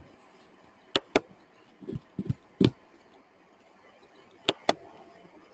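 Computer mouse clicking: two quick double-clicks about three and a half seconds apart, with a single sharp click and a few softer taps between them.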